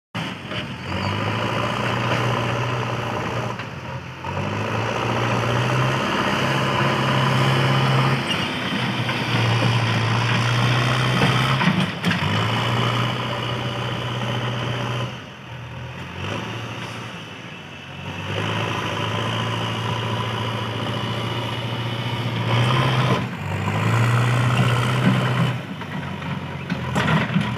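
A JCB 3DX backhoe loader's diesel engine running and revving up and down as it works, dropping to lower revs a few times.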